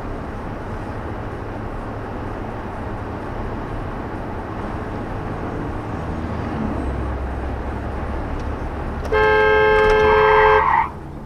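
Car driving on a country road with steady road and engine noise, then a two-tone car horn sounds one loud blast of about a second and a half near the end.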